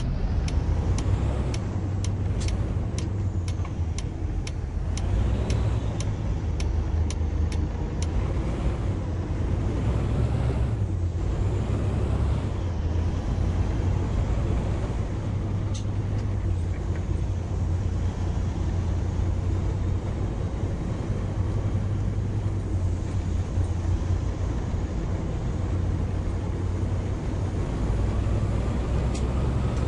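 Detroit Diesel DD15 inline-six diesel in a Peterbilt truck running steadily at road speed, a low drone. For the first eight seconds a regular ticking sounds, just under two a second. A faint rising whine comes in over the last several seconds.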